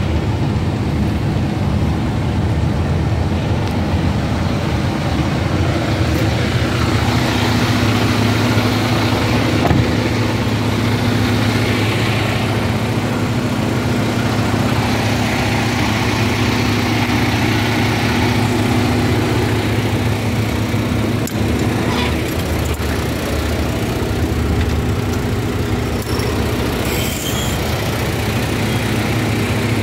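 Diesel engine of a Freightliner fire-rescue squad truck idling steadily, heard close-up as a constant low hum.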